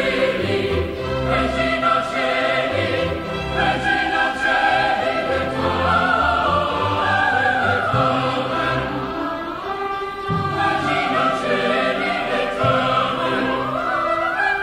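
Sacred choral music: a choir singing long, sustained lines with an orchestra.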